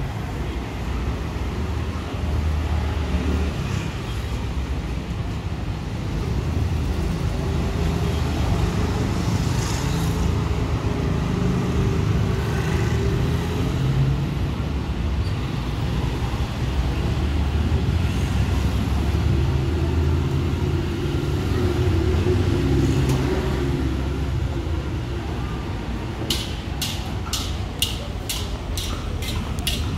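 Road traffic, with car engines swelling twice as vehicles pass close by. Near the end a regular clicking starts, about three clicks a second.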